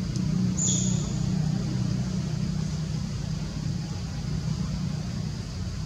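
Steady low engine rumble, like a motor vehicle running nearby, with one short high chirp about half a second in.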